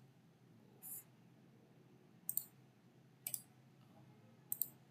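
Sparse clicks from working a computer's mouse and keyboard: about five separate sharp clicks, two in quick succession near the end.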